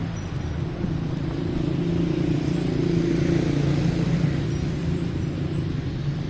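Street traffic with a motor vehicle's engine hum swelling as it passes close, loudest around the middle, then easing off.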